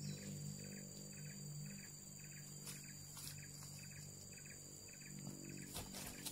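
Tropical forest insects calling: a steady high buzz with a short pulsed chirp repeating about twice a second. Footsteps and rustling in the leaf litter and undergrowth come in near the end.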